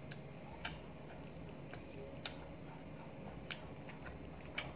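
Close-up eating sounds of someone chewing french fries: about six sharp, irregularly spaced mouth clicks and smacks over a low steady hum.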